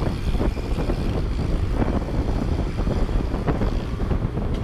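Wind buffeting the microphone of a rider-mounted camera on a moving motorbike, a steady loud rush with irregular gusts, mixed with engine and road noise.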